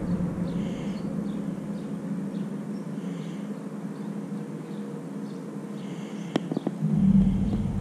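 A steady low hum that fades slightly and comes back stronger near the end, with a few sharp clicks about six seconds in.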